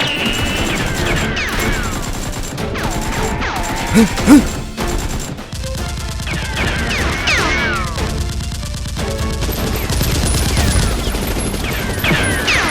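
Rapid gunfire sound effects, volleys of shots mixed with whizzing sounds that fall in pitch, over background music.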